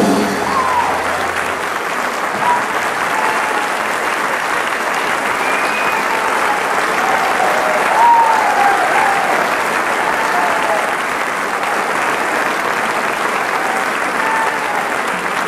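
Concert audience applauding at the end of a live jazz piece, with a few scattered shouts over the steady clapping.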